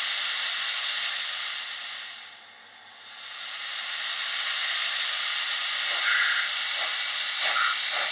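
Steam hiss from the sound decoder of an ESU H0 model steam locomotive, played through its small built-in loudspeaker. The hiss fades briefly about two to three seconds in and comes back. From about six seconds the model starts exhaust chuffs, roughly three a second, as the locomotive pulls away after uncoupling.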